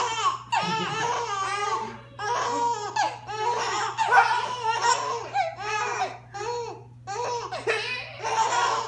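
A baby laughing in repeated runs of giggles and belly laughs, broken by short pauses.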